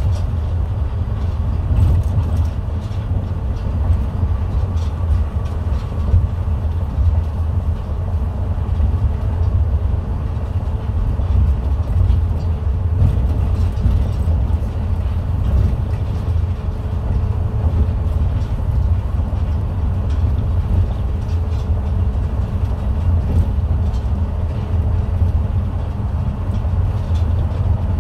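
New Tram rubber-tyred automated guideway train running, heard from inside the car: a steady deep rumble with a faint whine through the middle.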